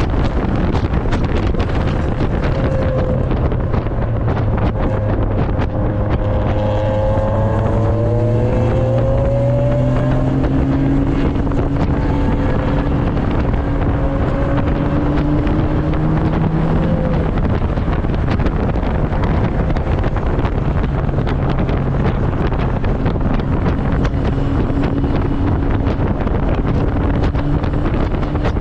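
Turbocharged 1999 Mazda Miata's 1.8-litre four-cylinder engine under hard driving on track, its note rising and falling with the revs. Heavy wind noise from the open cockpit runs throughout.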